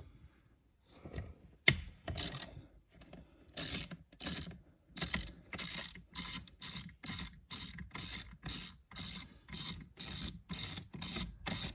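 Hand ratchet wrench ratcheting back and forth in short, even strokes, about two a second, as it backs out the last of three fasteners holding a lower dash panel. A few single clicks come first.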